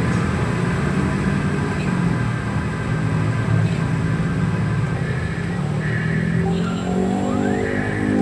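A steady, rough engine-like drone, with music starting about seven seconds in.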